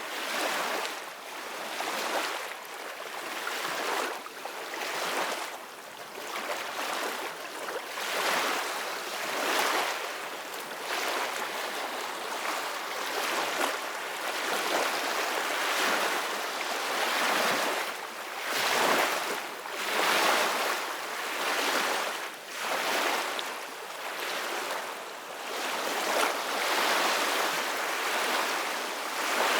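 Ocean waves breaking and washing on a beach, a continuous surf hiss that swells and ebbs every second or two.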